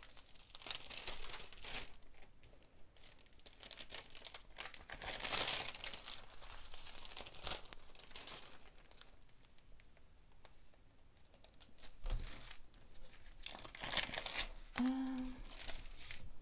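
Clear plastic cover film on a diamond-painting canvas crinkling as it is lifted and smoothed back down by hand, in several rustling spells with quieter stretches between.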